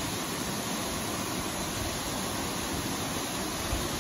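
Steady rushing of Aguasabon Falls, a tall waterfall pouring into a rock gorge.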